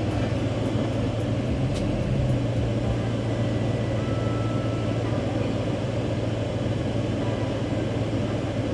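Ford F-250 pickup's engine idling with a steady, even low hum.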